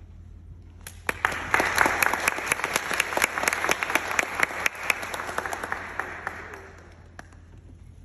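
Audience applauding. The clapping starts about a second in and dies away after about six seconds.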